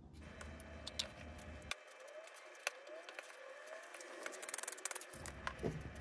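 A wooden spoon scraping and knocking against a ceramic bowl as butter is worked into flour and sugar. There are sharp clicks, a few short rising squeaks, and a quick run of taps about two-thirds of the way through.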